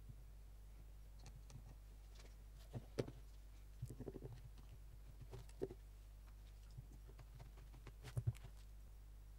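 One-handed plastic bar clamps being squeezed onto wooden boards: scattered light clicks and knocks from the triggers and jaws, loudest around three seconds in and again near the end, over a steady low hum.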